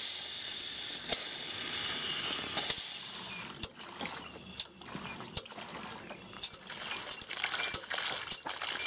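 Model Southworth vertical steam pump running slowly with a regular click at each stroke, over a steady hiss that fades about three seconds in. The water outlet is being restricted so the pump works harder, as if feeding a boiler, and water splashes from the outlet hose into a tub.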